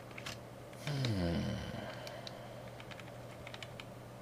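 A man's low, closed-mouth 'hmm' about a second in, falling in pitch over about a second. A few computer keyboard key clicks come before and after it.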